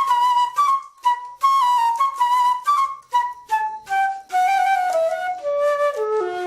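Recycled flute made from a water pipe, coins and scraps of cutlery and padlocks, playing quick short notes around one high pitch. About halfway through it moves into a run of notes stepping down in pitch.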